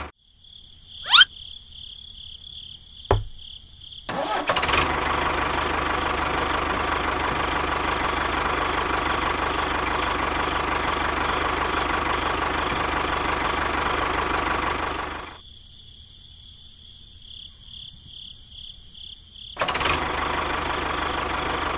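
A rising whoosh and a sharp click, then a vehicle engine running steadily. The engine drops away for several seconds and comes back near the end, with a faint high pulsing hum under it throughout.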